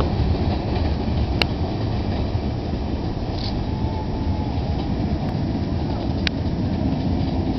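R32 subway train rolling along the elevated track into the station, a steady low rumble of steel wheels on rail with two sharp clicks, about a second and a half in and near the end.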